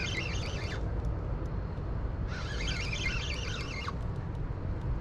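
Wind buffeting the microphone with a steady low rumble. Bursts of high, rapid chirping come about every two and a half seconds.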